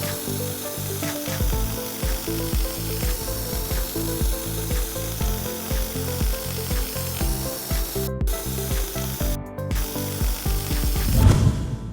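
Background music with a steady beat and shifting bass notes, growing louder near the end.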